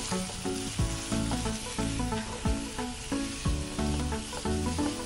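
Chopped vegetables sizzling in hot oil as they are stir-fried and tossed in a pan with a spatula, over background music with a steady beat.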